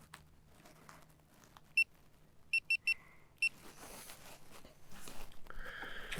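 Five short electronic beeps at one high pitch: a single beep, a quick run of three, then one more. After them comes rustling and handling of gear.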